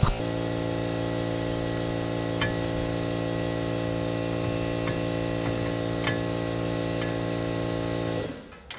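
Air compressor running with a steady hum while it refills its tank, then shutting off shortly before the end as it reaches pressure. A few light clicks sound over it.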